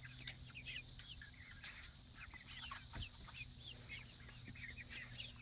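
Chickens making many faint, short high-pitched chirps and clucks, scattered throughout, with a couple of light clicks.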